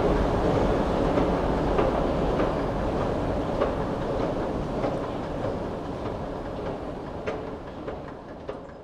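Subway escalators running: a steady low mechanical rumble and hum with faint clicks at a regular beat of about one every half second or so, gradually fading away toward the end.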